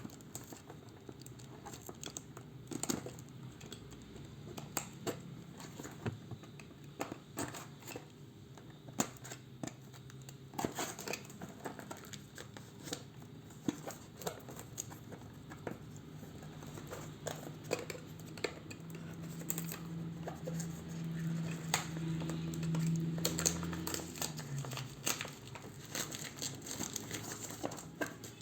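Packaging being handled and opened: plastic wrap and cardboard crinkling and tearing, with many scattered clicks and taps. A low hum swells for a few seconds past the middle and then falls away.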